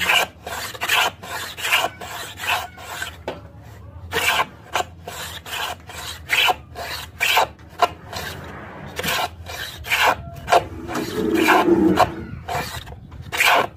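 Home-made wooden hand plane shaving a thin wooden strip: quick, short rasping strokes, about two a second, with one longer stroke near the end.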